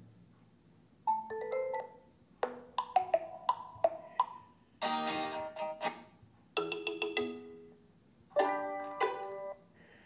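Built-in OnePlus Nord ringtone previews playing from the phone's speaker, one after another as each tone is selected: five short melodic snippets, each stopping after a second or two before the next one starts.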